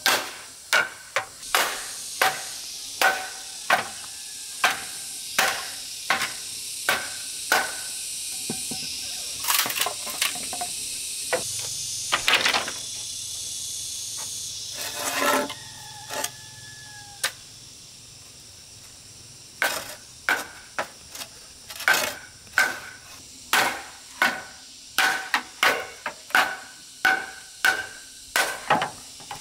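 Machete chopping into bamboo poles: a run of sharp blows, about one to two a second, many of them followed by a brief hollow ring from the bamboo. The chopping breaks off for several seconds midway, with only a few scattered knocks, then starts again.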